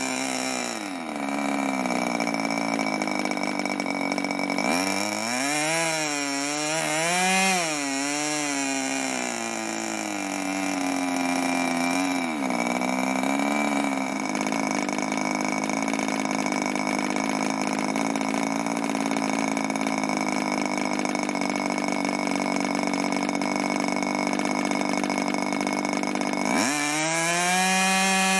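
Webra Silverline .61 two-stroke glow engine running on a test stand with an 11x7 propeller. Its speed drops to a low idle, wavers up and down for a few seconds, settles to a steady idle, then climbs quickly to high revs near the end. The speed hunting comes while the carburettor's low-speed needle is being set; the owner found it running a little too rich.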